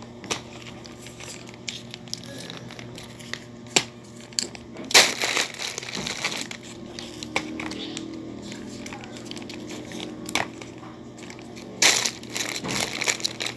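Plastic grocery packaging being handled: crinkling and rustling of plastic wrappers and bags, with scattered sharp crackles and louder rustles about five seconds in and again near the end.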